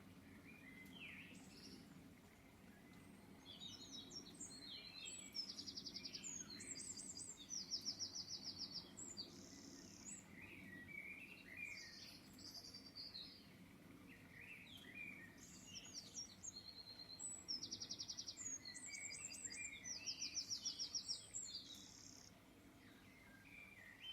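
Songbird singing: two long bouts of varied chirps and fast trills, about ten seconds apart, over a faint steady low hum.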